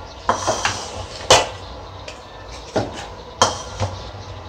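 Red silicone spatula stirring a thick cheese-and-cream sauce in a non-stick pan, with irregular sharp knocks and scrapes against the pan, the loudest about a second and a half in.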